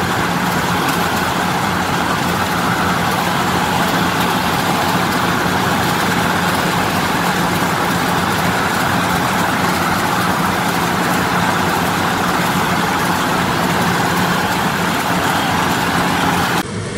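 Yanmar 82 combine harvester running steadily while it cuts rice: the engine with the header and threshing machinery under load, heard from the operator's seat.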